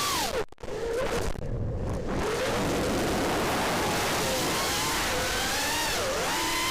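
FPV racing quadcopter's brushless motors whining, the pitch rising and falling with the throttle over a steady rush of propeller and wind noise. The sound drops out briefly about half a second in.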